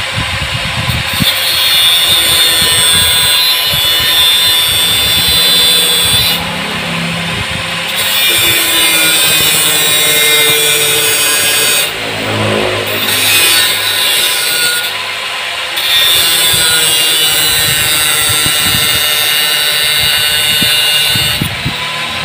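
Electric angle grinder grinding against a metal bracket in four long passes, the harsh grinding easing off briefly between them.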